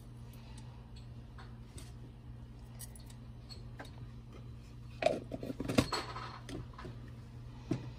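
Mustard seeds popping and crackling in hot sesame oil in a pan: scattered single pops, then a burst of louder crackles about five seconds in and another pop near the end, over a low steady hum.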